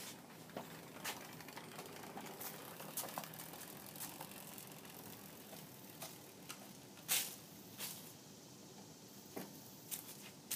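Faint footsteps with small scattered clicks and knocks as a dirt bike is wheeled by hand. The sharpest knock comes about seven seconds in.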